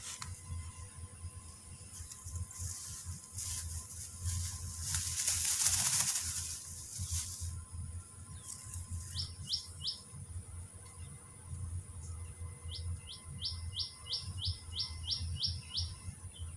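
A bird calling in quick, sharp repeated notes: a short run of three, then a longer run of about ten a few seconds later. Before the calls a hiss swells and fades over about four seconds, the loudest sound here, over a low steady rumble.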